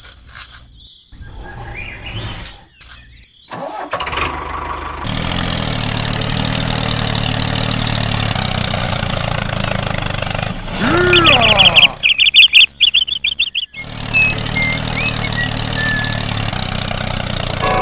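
A tractor's diesel engine starting about four seconds in and running steadily. Around eleven seconds a sound that rises and falls in pitch sweeps over it, followed by a quick run of high beeps. The engine sound then cuts out briefly before resuming.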